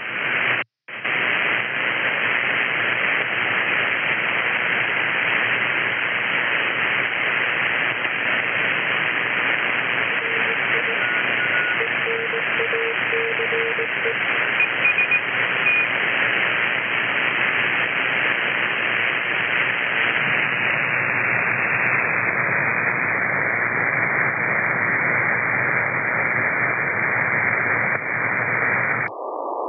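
Shortwave receiver audio from an Elecraft K3S transceiver: a steady hiss of band noise as it is tuned from the 49-metre broadcast band up to the 40-metre CW segment, with a few short beeps, Morse-like, passing about a third of the way in. The audio drops out for a moment near the start, and the hiss turns duller as the receive filter narrows, most sharply just before the end.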